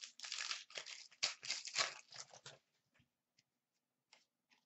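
The wrapper of a 2012-13 Panini Certified hockey card pack being torn open and crinkled for about two and a half seconds, then a few light rustles as the cards are handled.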